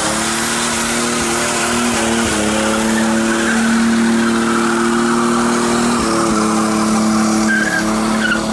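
Toyota Supra (A80) doing a burnout: the engine is held at high revs at a steady pitch, with a few small steps in pitch, over the loud hiss and squeal of the spinning rear tyres. The revs drop away near the end.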